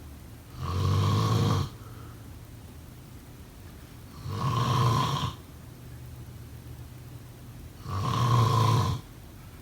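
A person snoring: three snores, each about a second long, coming evenly about every three and a half seconds.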